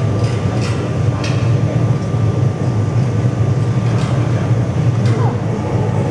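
Steady low roar of a glassworks furnace, with a few light clicks about a second in and again around four and five seconds in.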